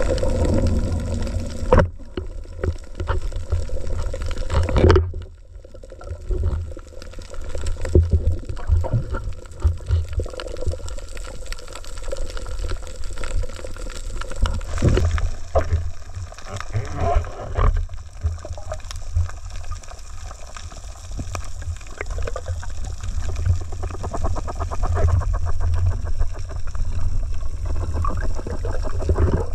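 Muffled underwater sound heard through a diving camera housing: water sloshing and gurgling over a low rumble, with irregular knocks.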